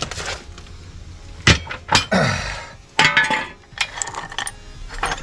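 A string of sharp metal clanks and clinks, with one short falling scrape in the middle, as a steel floor jack is handled and set in place under the front suspension.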